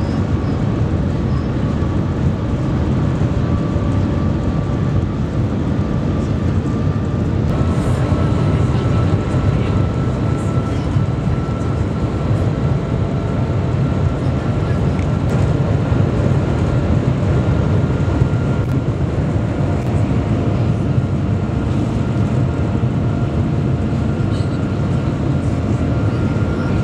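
Cabin noise of the Shanghai Transrapid maglev train running at about 417 km/h: a steady low rumble of air and running noise. A faint high whine runs through it and steps up in pitch about seven and a half seconds in.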